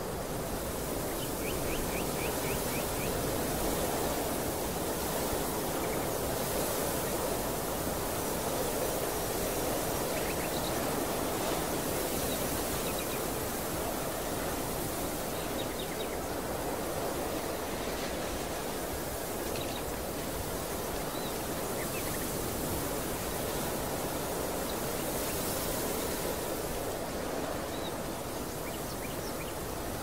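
Steady rushing open-air ambience over a field, with small birds chirping now and then, including a quick run of chirps about a second in.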